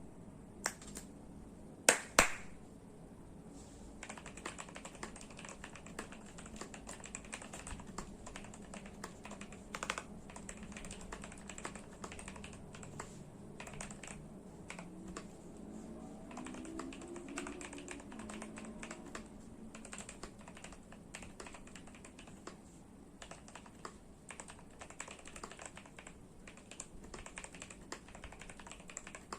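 Typing on a Machenike K500 mechanical keyboard: a couple of louder separate clacks near the start, then a steady run of key clicks from about four seconds in.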